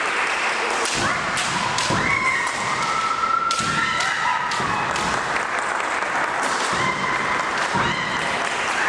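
Women's kendo bout: long, high-pitched kiai shouts from the fencers, repeated several times, over sharp clacks of bamboo shinai and thuds of stamping feet on a wooden floor.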